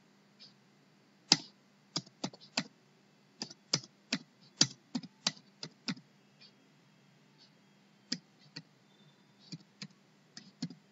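Typing on a computer keyboard: a quick run of separate keystrokes, then a few scattered ones in the second half.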